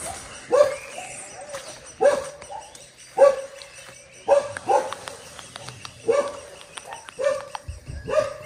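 A dog barking repeatedly, about one short bark every second.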